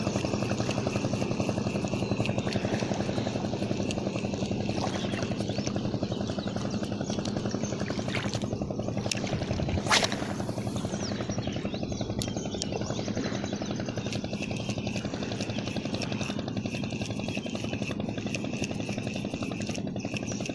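Small engine running steadily with a fast, even putter. A single sharp click sounds about ten seconds in.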